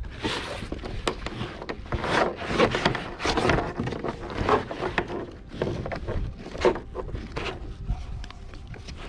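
Nylon seat straps being threaded through clasps and pulled tight, with rustling and scraping of the seat and straps against the plastic kayak in uneven strokes.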